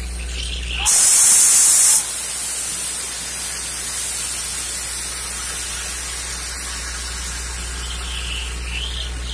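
Borewell drilling rig running while water and air gush out of the freshly struck borehole: a steady rushing hiss over a low drone. About a second in, a much louder harsh hiss lasts about a second and stops abruptly, after which the low drone is fainter.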